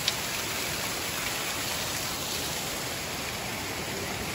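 Steady rush of water from a small waterfall and a rocky mountain stream, with one sharp click just after the start.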